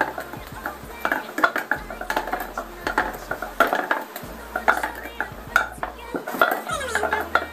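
Quick, irregular clatter of cups being flipped and knocked down on a tabletop, with light clinks among them.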